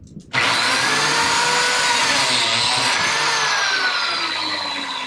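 A biscuit joiner (plate joiner) switches on about half a second in and runs, plunging into the wood to cut a biscuit slot. Its whine dips and rises as the blade cuts, then begins to fade near the end.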